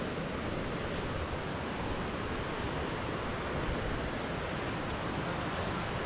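Steady, even rush of flowing water, without gusts or breaks.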